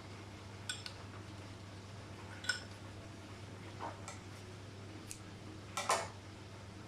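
Light clicks and taps from handling a Brother sewing machine while it is being threaded, about six of them spread out, the loudest near the end, over a faint steady low hum.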